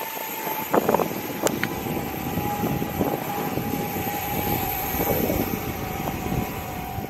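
Dual 6374 brushless electric skateboard motors running at cruising speed, giving a steady high whine over the rumble of 8-inch pneumatic tyres on asphalt.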